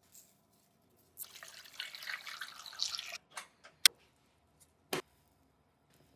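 Liquid pouring into a cooking pot for about two seconds, then a few sharp clicks, the loudest about four seconds in.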